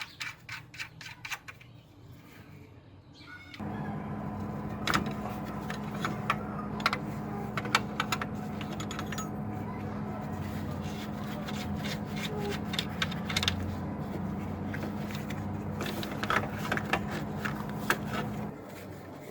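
Clicks and light handling scrapes, then a small electric motor switches on about three and a half seconds in. It runs at a steady pitch for about fifteen seconds with scattered clicks and scrapes on top, and cuts off near the end.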